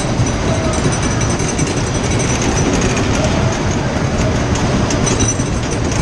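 A fairground ride running: a steady loud rumble and clatter of wheels on a track, with a few faint squeals.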